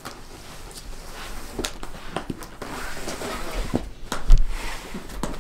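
Footsteps on a wooden floor and the knocks and scuffs of cardboard boxes being carried, with a dull heavy thump about four seconds in.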